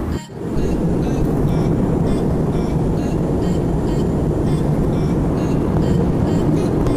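Steady noise inside an airliner's cabin in flight, the even rush of its jet engines and airflow, with a brief dip just after the start.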